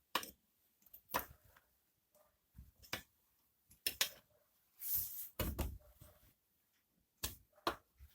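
A string of irregular knocks and clicks from tyre-fitting tools, a hammer and tyre levers, against a motorcycle tyre and wheel rim as the tyre bead is worked onto the rim. A longer rubbing scrape comes about five seconds in.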